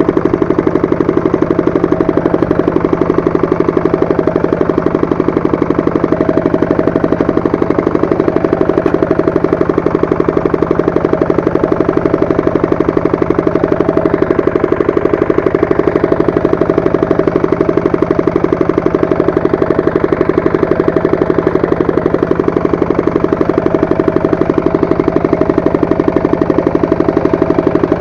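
Walk-behind tractor engine running steadily with a rapid, even pulsing, driving its rotary tiller.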